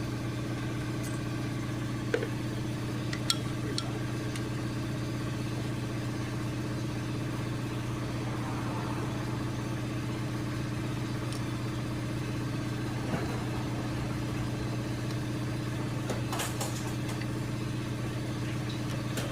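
A steady mechanical hum, like a motor or engine running, with a few light metallic clicks and taps from hand tools as the oil filter housing bolts are screwed out.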